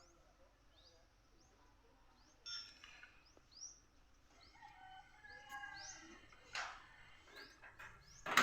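Faint bird chirps: short rising calls repeated about once or twice a second. A couple of sharp knocks come in the second half, the loudest near the end.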